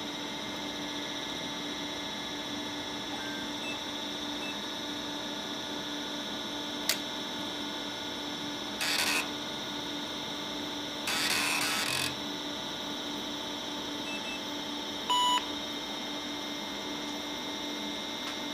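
IBM PS/2 Model 50 computer running with a steady hum and whine. A sharp click comes about seven seconds in, then two short rasping bursts around nine and eleven seconds that are typical of the floppy drive's motor and head working. A single short beep comes about fifteen seconds in.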